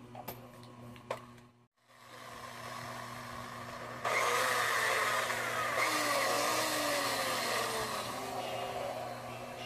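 A motor running with a steady whir that starts abruptly about four seconds in, its pitch sliding down in places.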